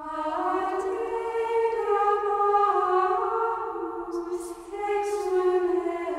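Background music of slow singing in long, held notes that move gently from pitch to pitch, with a couple of soft sung consonants near the end.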